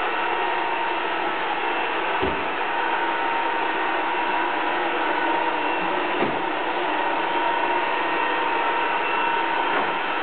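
Roomba robot vacuum running, a steady mechanical whir from its motor and brushes with a faint tone in it. Two soft low knocks come about two and six seconds in.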